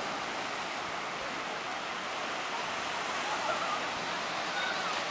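Steady hiss of surf washing over a sandy beach.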